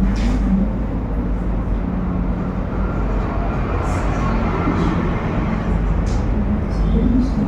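Steady low rumble of classroom background noise, with faint murmuring of students' voices talking in groups.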